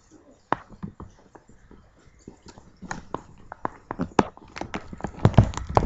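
Irregular soft knocks and scuffs of a wet dog rubbing and rolling on towels over a carpeted floor to dry herself, getting busier after about three seconds.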